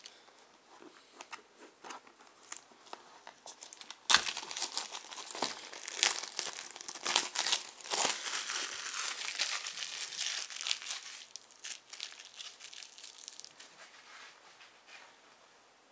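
Plastic packaging being handled and crumpled while a game box is unwrapped and opened: scattered crackles, a sharp crack about four seconds in, then dense crinkling that thins out over the last few seconds.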